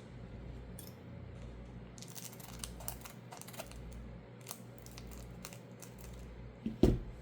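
Light clicks and crinkles of a foil trading-card booster pack and its cards being handled, with one dull thump near the end.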